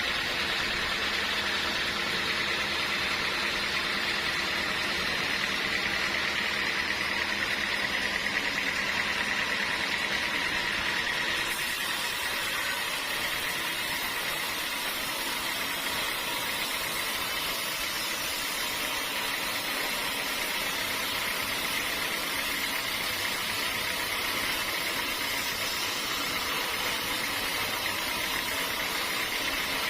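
Sawmill machinery running steadily, a continuous mechanical drone with a hiss-like band high in the sound.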